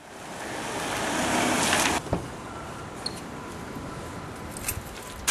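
Minivan driving up a paved driveway, its engine and tyre noise growing louder for about two seconds and then cutting off abruptly. After that comes a quieter steady background with a few short clicks.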